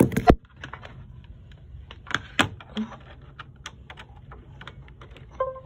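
Scattered clicks and knocks of handling as a USB plug is pushed into a laptop's port, with a sharp click at the start. A short electronic chime begins near the end.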